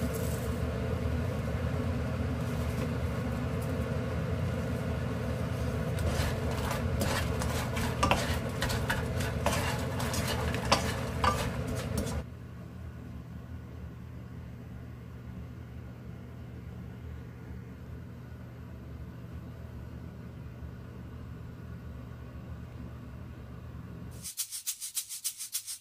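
Crisp batter-fried chili pepper chips being stirred in a nonstick frying pan over a steady low hum, clicking and rattling for several seconds. About twelve seconds in the pan sounds stop and a quieter hum carries on. Near the end, light rattling music begins.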